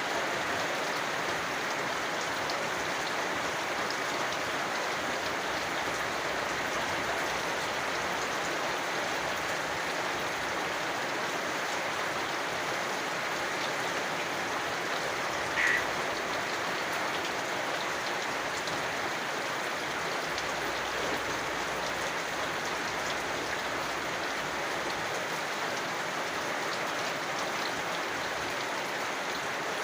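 Steady rain falling and pattering on surfaces, an even hiss of drops. About halfway through comes one brief, sharper sound that stands out above the rain.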